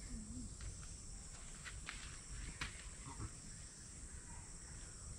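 Rainforest ambience: a steady high-pitched insect drone, with a few sharp clicks around the middle and a low rumble underneath.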